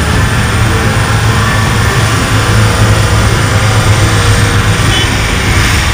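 Steady low drone of a moving vehicle's engine and road noise, heard from inside the vehicle.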